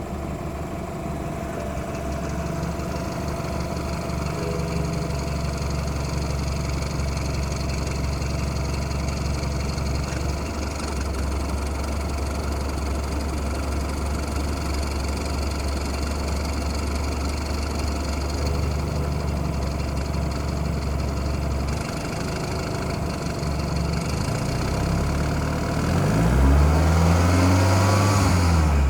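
BMW F30 engine idling with a ticking noise, which the owner says is worse with the A/C on and goes away above 2,000 rpm. Near the end the engine is revved briefly and falls back.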